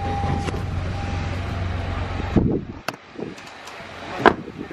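Low steady hum of a stopped car, which drops away about two and a half seconds in, then a click and, a little after four seconds, a sharp thump of a car door shutting.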